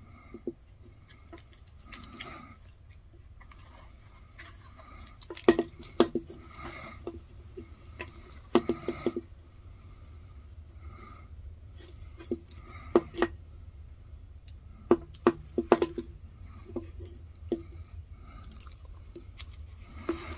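Hand saddle-stitching a leather sheath with two needles: waxed thread drawn through the stitching holes, with clusters of sharp small clicks from the needles and thread every few seconds.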